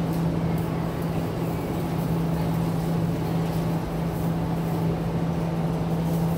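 A steady low hum over an even background of indoor store noise.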